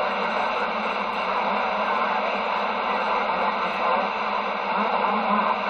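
CB radio receiver hissing with steady static between transmissions, with a low hum underneath.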